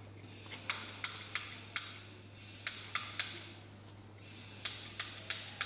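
A square of red dental sheet wax is being flexed in the hands, giving about a dozen irregular sharp crackles and clicks. The wax is stiff and has not yet been softened.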